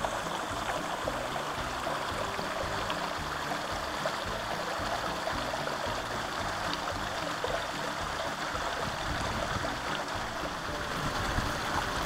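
Small waterfall and creek running over rock ledges: a steady rush of water.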